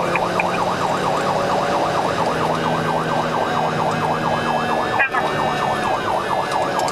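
Police car siren in a fast yelp, sweeping quickly up and down over and over, with a second, slower siren tone above it and a steady engine hum beneath.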